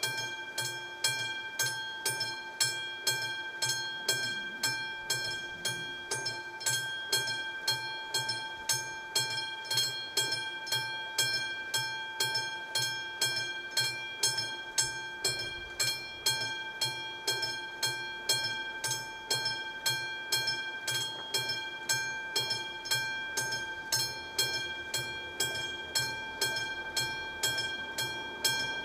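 Classic bell of an AŽD 71 level-crossing warning signal ringing steadily at about two strikes a second, sounding the warning that a train is approaching and the crossing is closed.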